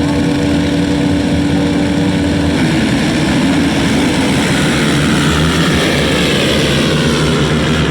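Dirt bike engine running and changing pitch as the throttle is worked, with a steady tone giving way about two and a half seconds in to rising and falling revs.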